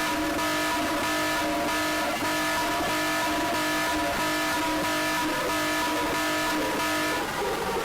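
Electronic alarm siren sounding loud and steady, several held tones over a harsh noisy buzz; the tones start to slide down in pitch near the end.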